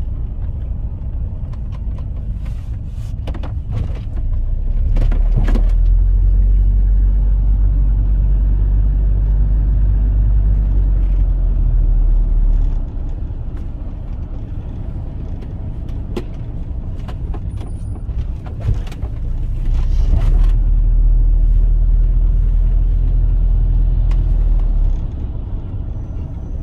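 A London black taxi's engine and tyres rumbling on the road, heard from inside the cab. The rumble swells twice for several seconds at a time, once from about four seconds in and again near the end, as the taxi picks up speed.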